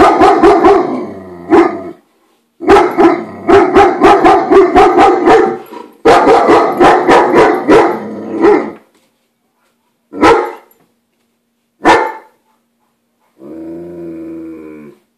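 German shepherd barking at a stranger outside: territorial alarm barking. Loud rapid volleys of barks come first, then two single barks, and near the end a quieter, drawn-out low growl.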